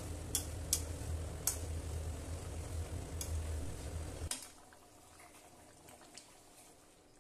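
A steel ladle stirring simmering chicken curry in a metal kadai, clinking against the pan several times over a steady low hum and a sizzling haze. About four seconds in, the hum and sizzle cut off suddenly, leaving only a faint bubbling simmer.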